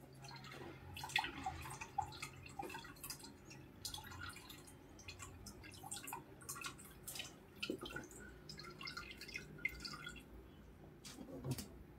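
Faint, irregular dripping of water falling from the end of a straw into a bowl, pushed out of the bottle by air from a deflating balloon.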